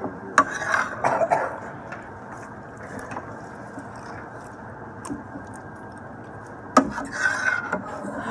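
A fork clicking and scraping against a plate while someone eats, with scattered single clicks and two short clusters of louder noises, one just after the start and one near the end.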